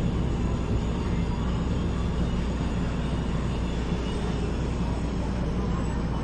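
Interior of a Metro Cammell 'MLR' electric multiple unit standing at a platform: a steady low hum and rumble from its on-board equipment.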